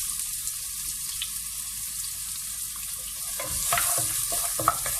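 Chopped onion sizzling in hot vegetable oil with fennel seeds, a steady hiss, with a utensil stirring and knocking in the pan from about three and a half seconds in.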